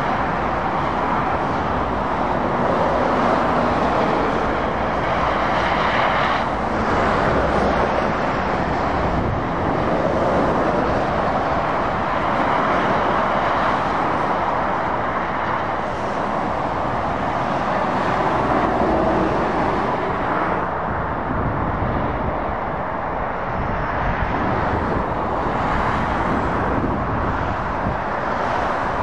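Motorway traffic: heavy lorries and cars passing at speed, a continuous rush of tyre and engine noise that swells and eases as each vehicle goes by.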